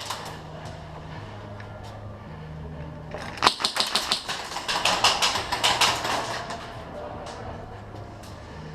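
Airsoft guns firing: a sharp crack about three and a half seconds in, then rapid runs of clicking shots over the next few seconds.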